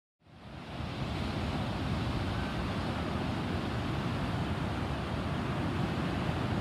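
Wind on the microphone over the steady rush of big ocean surf breaking, fading in over the first second and then holding steady.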